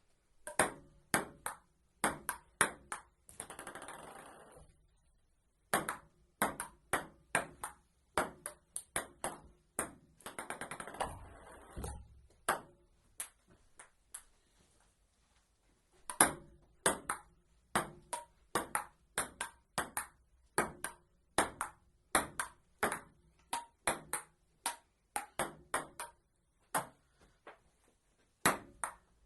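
Amateur table tennis rallies: the celluloid ball clicking off paddles and the table about twice a second, in runs broken by short pauses, with a long unbroken rally in the second half.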